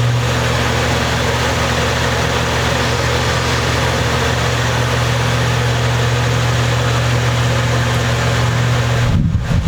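A steady low hum made of several stacked tones over a hiss, which stops about nine seconds in.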